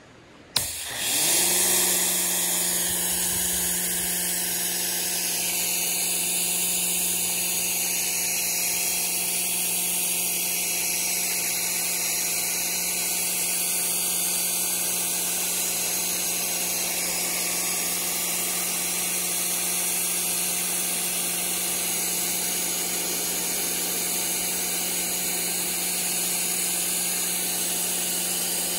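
Pressure washer starting suddenly about half a second in, then running steadily: the pump's even hum under the loud hiss of the high-pressure spray on the canoe hull.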